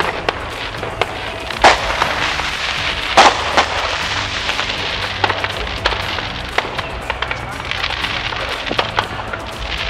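Firework rockets going off: a string of sharp bangs and crackles, the two loudest about one and a half and three seconds in.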